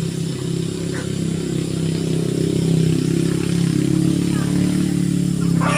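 Steady low drone of a running engine, swelling slightly louder partway through.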